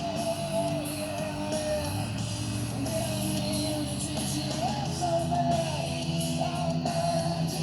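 Rock song with guitar and a sung vocal playing through a Harley-Davidson Electra Glide's fairing and saddlebag stereo speakers (Hertz mid-ranges and tweeters, Rockford Fosgate 6x9s).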